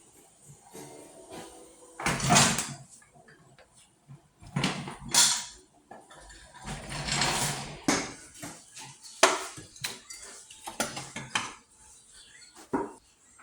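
Metal tools and engine parts clanking and clattering during work on a tractor engine's cylinder head: about six separate bursts of clatter with short pauses between.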